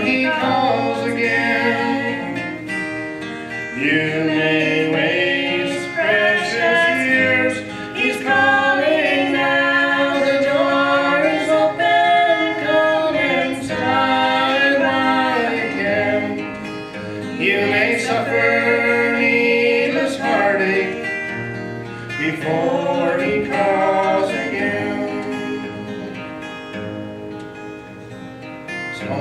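A gospel song sung to acoustic guitar accompaniment. The singing grows quieter over the last few seconds, leaving mostly guitar.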